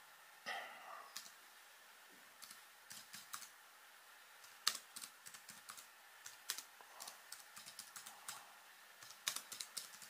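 Typing on the CHUWI Ubook X tablet's detachable keyboard cover: irregular light key clicks that start about two and a half seconds in and go on at an uneven pace.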